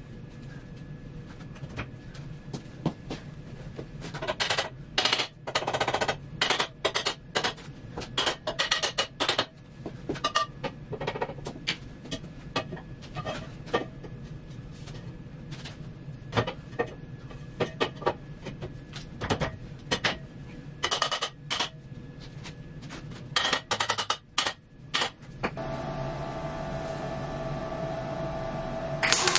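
Short bursts of wire-feed welder crackle as cross braces are tack-welded into a steel square-tube trailer frame, with sharp metal knocks between the tacks over a steady low hum. Near the end a steady humming tone runs for a few seconds, then a final loud tack.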